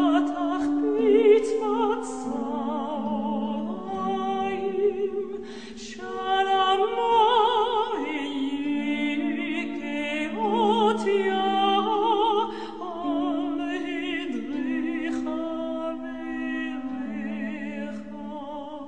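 Slow classical-style singing with strong vibrato over steady sustained accompanying notes, a musical interlude; it fades away near the end.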